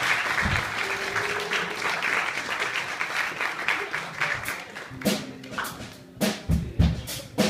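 Audience applause that fades away over the first four or five seconds, followed by a few scattered drum kit hits near the end.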